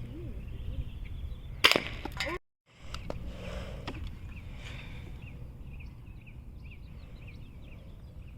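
A spring-piston air rifle firing once, a sharp crack about a second and a half in, followed shortly by a fainter knock.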